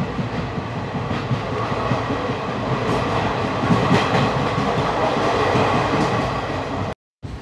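Passenger train running at speed, heard from an open coach doorway: continuous wheel and rail rumble with wind rush, swelling a little about halfway. The sound drops out to silence for a moment near the end.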